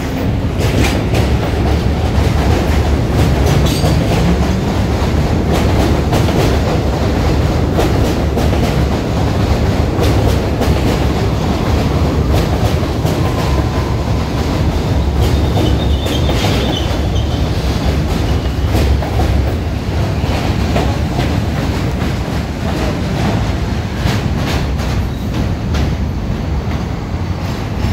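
R42 New York City subway train pulling out of an elevated station: the motors whine upward in pitch over the first few seconds as it picks up speed, then the wheels clatter and click over the rail joints as the cars pass, with a brief high wheel squeal a little past halfway.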